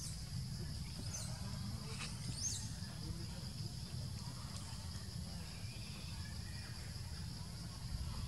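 Outdoor forest ambience: a steady, high-pitched insect drone over a low rumble, with a couple of short high chirps about a second and two and a half seconds in.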